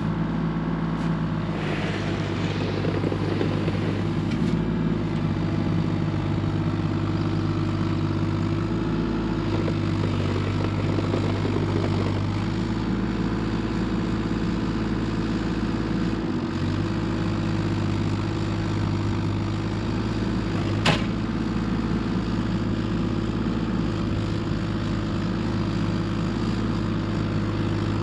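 An engine running steadily at an even speed, with a single sharp knock about three-quarters of the way through.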